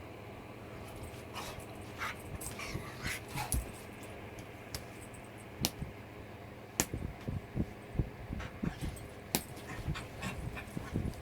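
A dog during rough play, making short whimpering and yipping noises, with scattered clicks and low thumps, busier in the second half.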